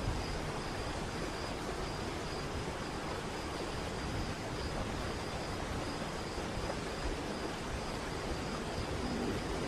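Waterfall: a steady rush of falling water, with a faint steady high-pitched note over it.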